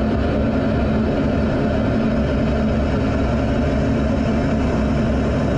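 Steady rush of airflow and jet engine noise picked up by a camera on board a jet in flight, with a constant low hum and no change in pitch.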